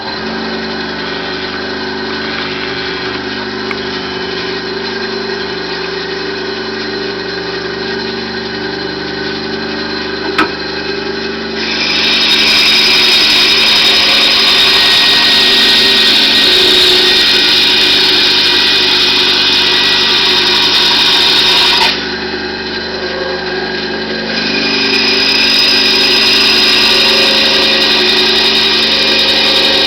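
Bandsaw with a narrow 1/8 inch scroll blade running with a steady hum, its blade cutting through 18 mm multiplex plywood in two long stretches, from about twelve seconds in to about twenty-two, and again from about twenty-four seconds on, each louder and hissier than the idle run.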